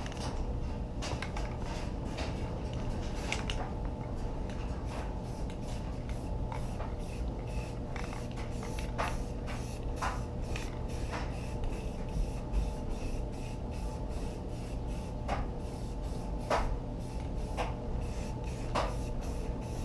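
Aerosol can of Rust-Oleum filler primer hissing as primer is sprayed in many short bursts, over a steady low hum.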